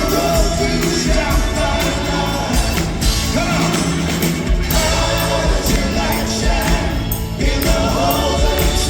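Rock band playing live, with a sung lead over group backing vocals and a steady drum beat.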